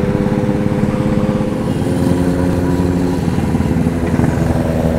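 Motorcycle engine running steadily while riding along, heard from the rider's own seat, with a fast, even beat of firing pulses. The pitch shifts slightly about a second and a half in.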